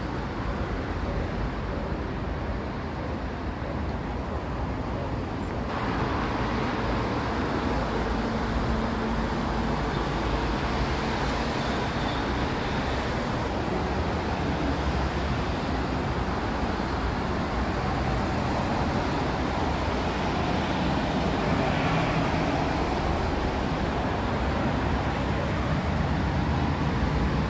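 Steady background road-traffic noise, an even rumble and hiss with no distinct events. It gets a little louder and brighter about six seconds in.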